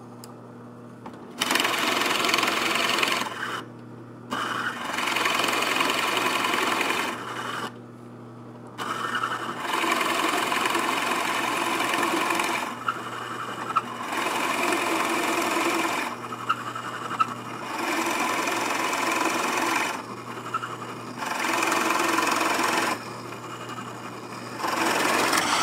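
Drill press running with a 1 3/8-inch Forstner bit boring into a wooden board. There are about seven loud spells of cutting with short quieter gaps between them, while the motor's steady hum carries through the gaps. It cuts off suddenly at the end.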